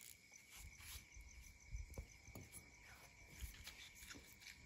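Near silence with faint, steady cricket chirring, and a few soft low knocks.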